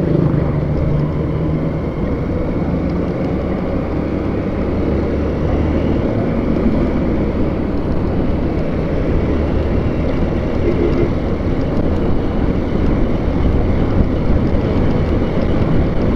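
A vehicle on the move: a steady low engine drone under a constant rush of road and wind noise.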